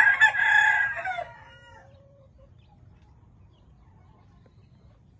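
A gamefowl rooster crowing once: a loud crow of about a second and a half that trails off lower and fainter near its end.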